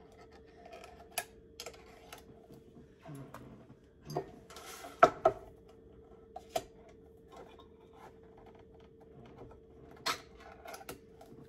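Hand-held can opener working around the rims of metal soup cans: scattered clicks and scraping, with a sharper metallic clatter about five seconds in. A faint steady hum runs underneath.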